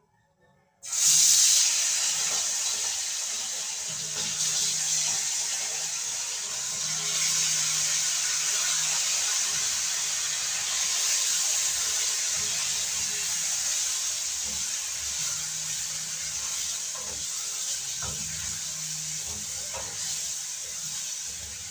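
Pieces of beef kidney going into hot oil in a frying pan, sizzling. The sizzle starts suddenly about a second in, loudest at first, then keeps up steadily.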